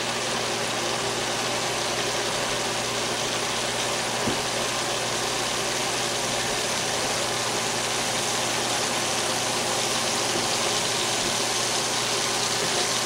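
Breaded chicken drumsticks frying in a skillet of hot oil: a steady sizzle and bubble, with a faint low hum underneath.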